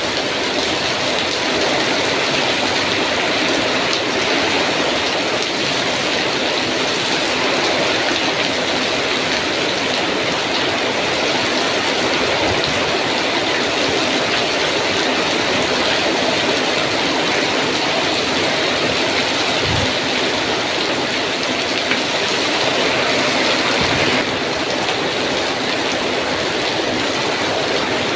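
Heavy rain pouring down in strong wind, a loud, steady, dense hiss, with a few brief dull low thumps.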